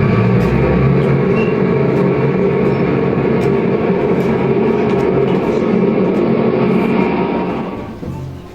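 Heavy machinery rumble, as of a bulldozer engine, played as a loud, steady sound effect that fades out near the end.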